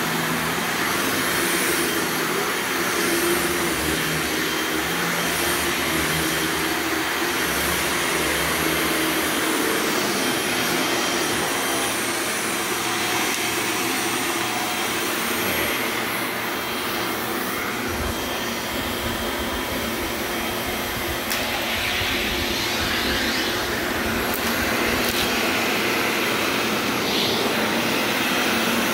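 Carpet-cleaning extraction machine running steadily, its vacuum pulling air and water back through the cleaning wand, with the rushing sound shifting slightly in tone partway through.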